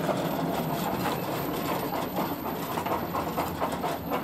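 A 1:8 scale model locomotive running on its garden track, a steady mechanical whir from its drive.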